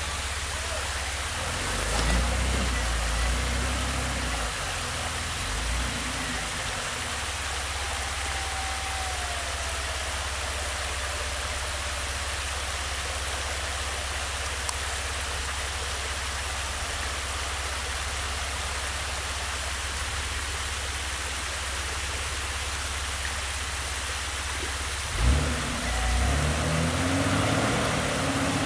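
Steady rush of water running over a creek waterfall, with a vehicle engine running low underneath. About 25 seconds in there is a sudden thump, and the engine picks up louder.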